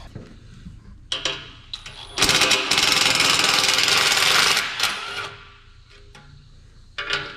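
Milwaukee cordless power tool run in one burst of about two and a half seconds, starting about two seconds in, with brief shorter runs before and near the end. It is loosening the clamp on the tractor's exhaust stack.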